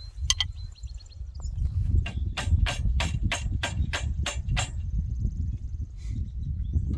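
A run of about nine sharp, evenly spaced metal clicks, roughly four a second, from a hand tool working on the disc tiller's steel parts, over a steady low rumble. One ringing click comes just before, near the start.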